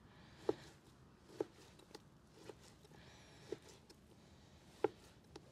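Knife knocking against a cutting board as beef is cut from the bone, short separate knocks about once a second at irregular spacing.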